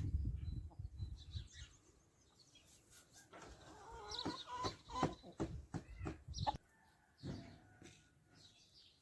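Domestic chickens clucking softly as they forage, their wavering calls mostly in the middle of the stretch, with a low rumble in the first second or so.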